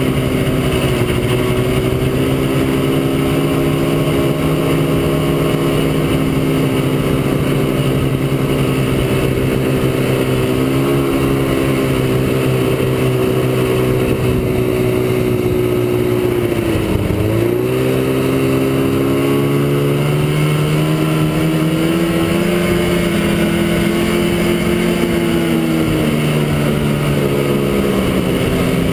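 Ski-Doo Blizzard snowmobile's two-stroke engine running under way at a steady speed, with a brief sharp drop in revs and recovery about halfway through, then a slow rise in pitch that eases off near the end.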